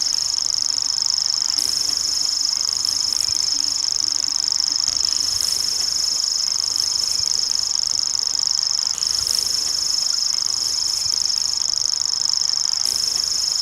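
Common grasshopper warbler reeling: one continuous, high-pitched, insect-like trill held without pause, with a tiny dip about nine seconds in.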